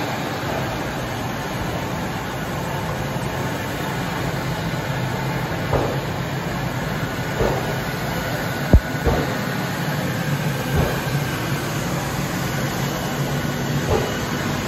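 Electric walk-behind floor scrubber-dryer running as it is pushed over a tiled floor, with a steady motor hum and scrubbing noise. A few soft knocks come through, and one sharp click about nine seconds in.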